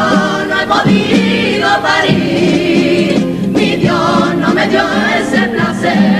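A comparsa, a mixed carnival choir of young women's voices with a few boys singing the second part, sings a pasodoble in harmony, accompanied by two guitars.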